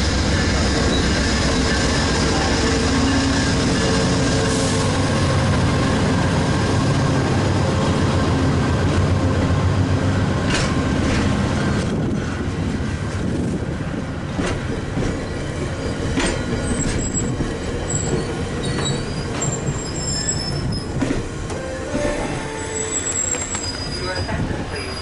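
A diesel locomotive on a VIA Rail passenger train runs steadily with a low rumble while the train stands at the platform. About halfway through the rumble eases, and scattered clicks and brief high squeals follow.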